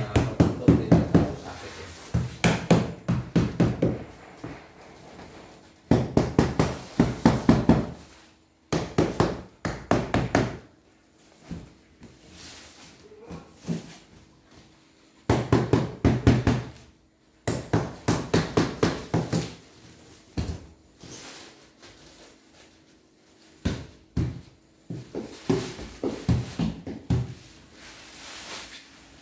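Packing noises: bursts of rapid clicking and knocking, several strokes a second, each run lasting one to two seconds with quieter gaps between, from scissors cutting plastic sheeting and a cardboard box being handled.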